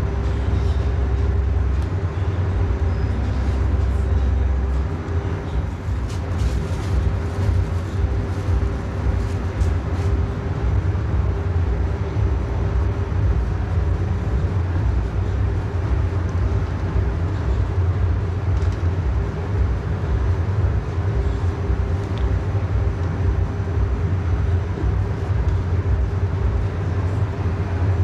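Steady low machine rumble with a constant hum, and a few faint clicks between about six and ten seconds in.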